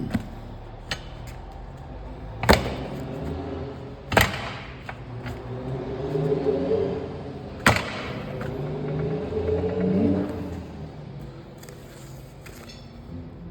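Hammer blows on a truck's steel split-rim wheel: four sharp knocks, the loudest about two and a half seconds in, over a low rumble that swells twice.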